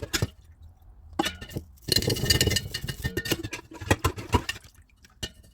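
Metal clicks, knocks and rattles from a seized, rusty door latch mechanism being worked by hand after a soak in penetrant, with a louder stretch of scraping and rattling about two seconds in.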